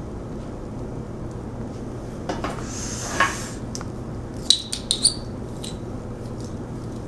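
A person lighting and smoking a cigarette with a lighter, over a low steady hum. A short breathy hiss comes about three seconds in, then a few sharp light clicks.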